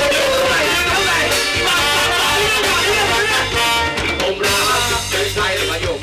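Live band with a horn section of trombone, trumpets and saxophones playing upbeat music, with drums and guitar.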